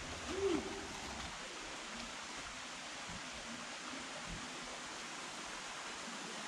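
Steady rush of falling water from a waterfall, with one short hooting tone that rises and falls right at the start.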